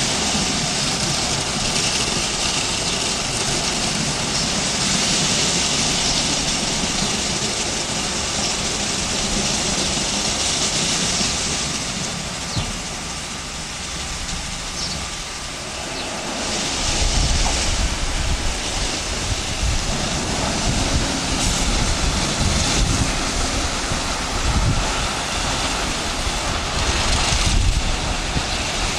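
Automatic rollover car wash running, its rotating brushes scrubbing over a car with a steady machine noise. About halfway through, a heavier low rumble joins in as the brushes work down the car.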